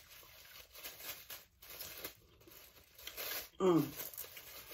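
The plastic wrapper of a disposable fork being torn and crinkled open by hand, in a few soft bursts, loudest about three seconds in.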